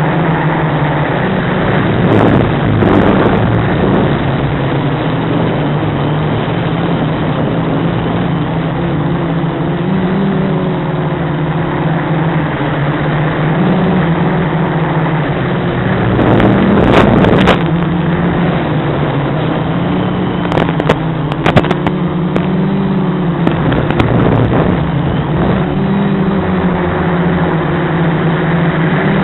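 Quadcopter's brushless motors and propellers humming steadily in flight, the pitch drifting up and down with throttle, with a couple of louder rushes of noise and a few clicks.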